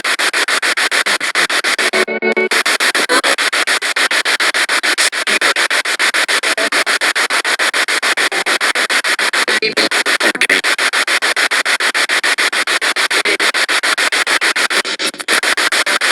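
Spirit box radio sweeping rapidly through stations: a loud, steady stream of choppy static bursts, several a second, with brief snatches of broadcast sound cut in between.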